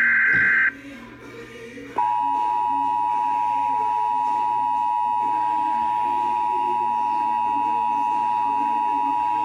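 Emergency Alert System tones for a Child Abduction Emergency alert. A buzzing SAME header data burst ends under a second in; then, about two seconds in, the steady two-tone EAS attention signal starts and holds level.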